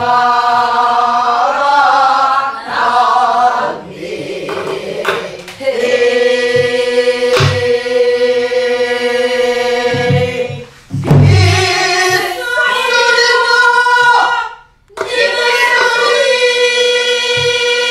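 Women singing a Namdo folk song together in unison, with long held notes that bend and waver between phrases. A few strokes on a buk barrel drum mark the rhythm beneath the voices.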